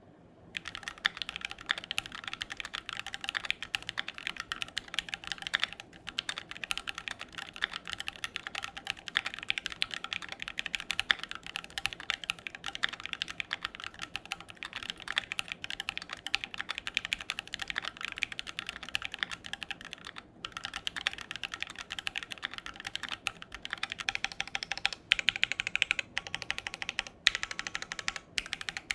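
Fast, continuous typing on a Keychron Q1 mechanical keyboard in its first build, before any mods, with a couple of short pauses. The owner dislikes this sound and typing feel.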